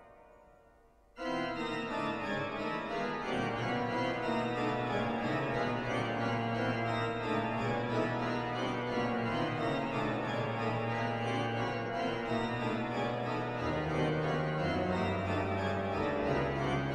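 The 1727 Müller pipe organ: the last chord of the previous piece dies away in the church's long reverberation, then about a second in the organ starts playing loudly with full sustained chords. Deep pedal bass notes join near the end.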